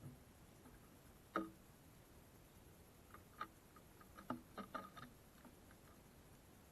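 Small birds tapping and pecking at seed on a wooden bird feeder: a sharp knock about a second and a half in, then a quick run of lighter taps and clicks.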